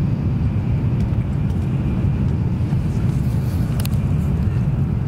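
Steady low rumble inside an N700 series Shinkansen passenger car running between stations, with one brief sharp click about four seconds in.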